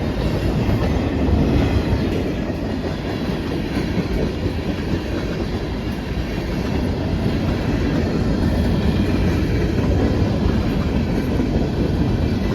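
Freight cars of a long CSX freight train rolling past close by: a steady, loud rumble of steel wheels on the rails.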